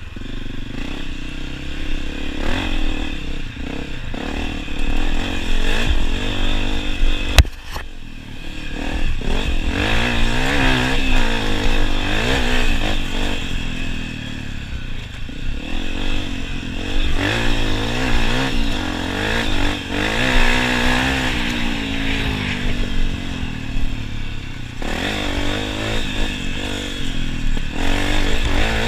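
Honda CRF250F's air-cooled single-cylinder four-stroke engine revving up and down as the dirt bike is ridden, its pitch rising and falling with the throttle. There is one sharp knock about seven seconds in.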